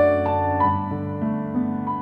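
Slow, gentle piano music: a simple melody with a new note about every half second over held low notes.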